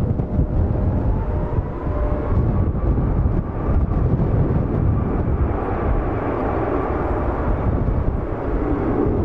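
Twin jet engines of a Ryanair Boeing 737 at takeoff thrust during the takeoff roll: a steady rumble with a faint whine that rises in pitch.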